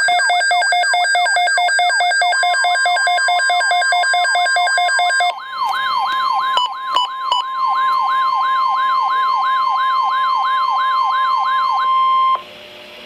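Electronic siren sounds: a pulsing siren with repeated falling sweeps, changing about five seconds in to a fast up-and-down yelp of about three sweeps a second. Under them, starting about two seconds in, runs the steady 1050 Hz NOAA Weather Radio warning alarm tone, which cuts off about twelve seconds in.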